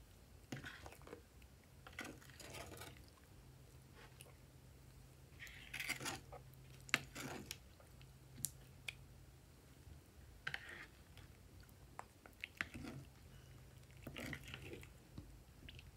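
Clear glitter slime stirred and scooped with a spoon in a glass dish: irregular sticky, wet squishing sounds with a few sharp clicks.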